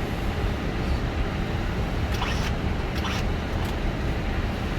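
Steady low rumble of an Airbus A320-200's flight deck after landing, with two brief noises about two and three seconds in.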